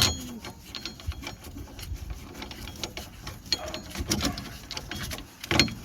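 Small metallic clicks and rattles of a hub mounting bolt being started by hand into a rear wheel bearing hub, with a sharper metal knock at the start and another near the end.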